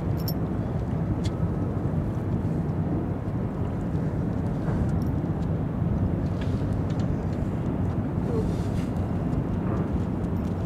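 Steady low rumble of harbour ambience, with a faint engine drone running through it.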